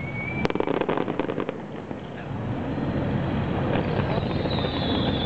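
Fireworks bursting: a rapid run of sharp cracks and pops in the first second and a half, then a steady rushing noise with a long high whistle starting about four seconds in.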